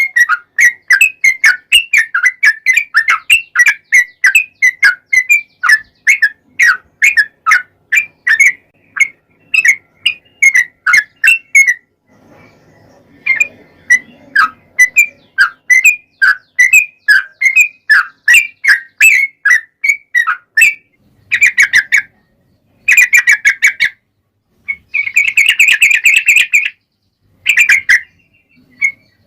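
Yellow-vented bulbul (trucukan) song: a long, rapid run of short, bubbly whistled notes, about three to four a second, with a few brief pauses.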